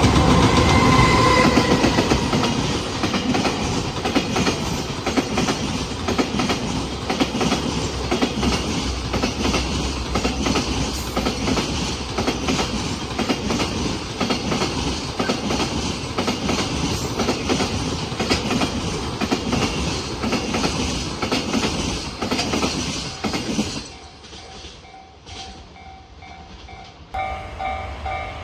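Freight train passing at speed, its wagon wheels clattering heavily over the rail joints in a steady clickety-clack. The train noise drops away about 24 seconds in, and a level-crossing alarm starts ringing near the end.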